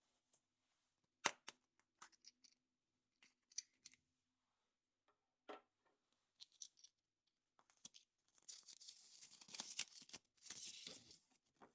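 Quiet unwrapping of surprise-egg packaging by hand: a few sharp clicks and light taps, the loudest about a second in, then a couple of seconds of crinkling and tearing of the wrapper near the end.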